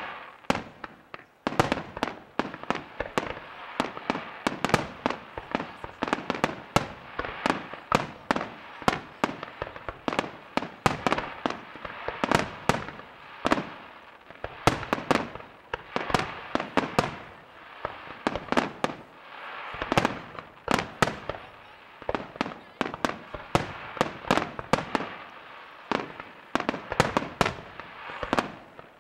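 Aerial fireworks display: shells bursting in rapid succession, sharp bangs several times a second over a steady crackle.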